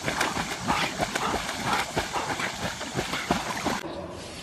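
Water splashing as dogs swim and paddle in a pond: a dense run of uneven splashes over a steady wash of water noise, stopping abruptly just before the end.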